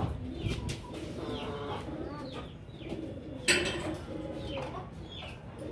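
Birds in the pen calling, soft cooing and short falling chirps, with a single sharp knock about three and a half seconds in.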